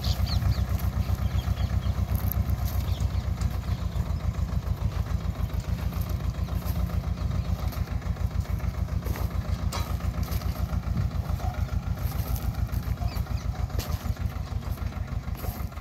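Sonalika Baagban DI-30 mini tractor's diesel engine chugging steadily under load as it pulls a one-tyne ridger through the soil, slowly fading as the tractor moves away.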